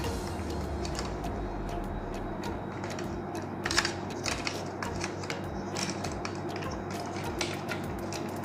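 Hard plastic toy parts of an Encore Omega Supreme clicking and knocking as a leg piece is handled and fitted on, with a sharper click a little under four seconds in, over a steady background hum.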